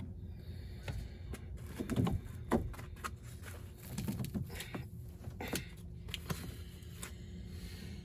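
Irregular knocks, clunks and scrapes of PVC condensate drain pipe and fittings being handled and worked at an air handler's drain pan, over a steady low hum.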